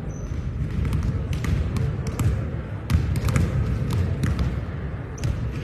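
Volleyballs being struck and bouncing on a hardwood gym floor: a string of sharp, irregular smacks in a large gym.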